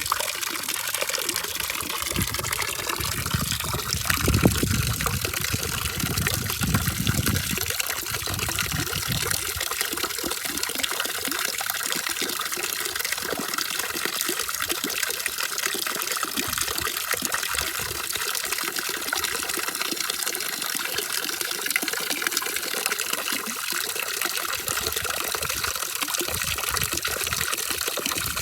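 Running water making a steady rushing hiss, with some deeper gushing surges for a few seconds early on.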